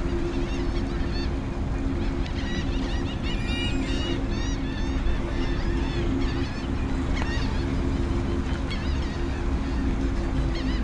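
A boat engine idles with a steady low hum as the boat creeps in toward the ramp, while birds give many short, repeated calls overhead.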